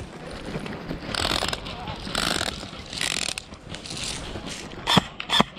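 Airsoft electric guns firing three short full-auto bursts, each about half a second long and about a second apart, the gearbox rattling through each burst. Near the end come two sharp loud cracks in quick succession.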